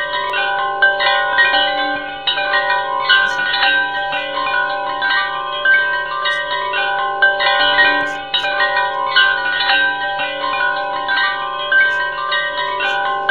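Background music of bell-like chimes, many ringing notes struck one after another and overlapping.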